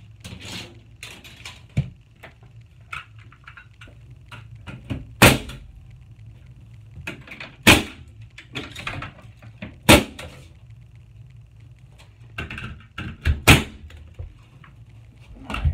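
Pneumatic nail gun firing nails through a wooden board into the wall framing, about five sharp shots two to three seconds apart, with smaller clicks and handling knocks between them.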